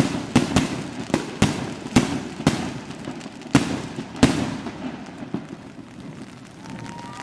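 Aerial fireworks shells bursting in a quick run of sharp bangs, each trailing off in echo, about nine in the first four and a half seconds, then fewer and fainter until the reports die away.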